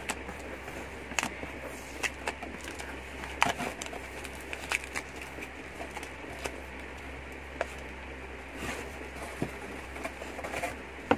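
Cardboard shipping box being handled and pried open: irregular short crackles and clicks of cardboard and packing tape, over a steady background hiss.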